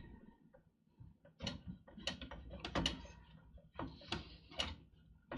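Front fan module of a PowerMac G5 clicking, knocking and scraping in its slot as it is worked out of the case by hand, a string of irregular clicks starting about a second and a half in.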